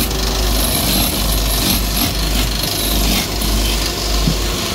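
Belt-driven wood lathe running with a steady low hum while a hand-held turning chisel cuts into a spinning wooden spindle, giving an uneven scraping, shaving sound.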